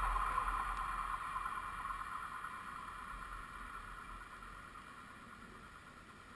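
Southern Pacific 4449 steam train moving away along the track after passing over, heard from the rail: a low rumble and a hum through the rails fade steadily away.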